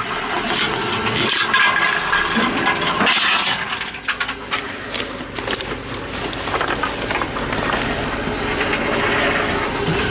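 Aluminium cans clinking and clattering as they are handled and fed into a Tomra 42 reverse vending machine for cans, with a steady run of small metallic clicks and rattles.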